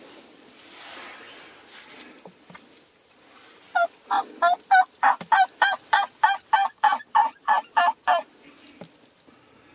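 Turkey yelping: a run of about fifteen evenly spaced notes, a little over three a second, starting about four seconds in and lasting about four seconds.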